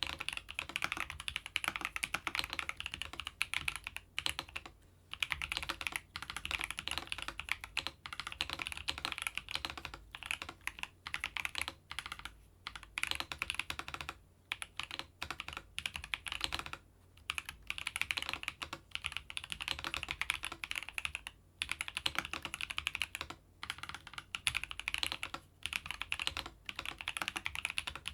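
Keychron V3 Max mechanical keyboard with banana switches being typed on, a steady patter of quick keystrokes in runs broken by short pauses.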